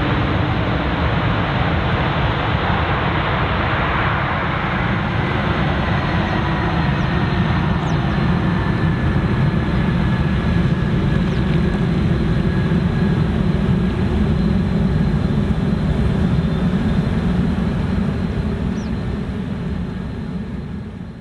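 Airbus A330-200F freighter's jet engines running as it rolls out down the runway after touchdown, a steady noise with a faint whine that falls slowly in pitch as the aircraft moves away. The sound fades out near the end.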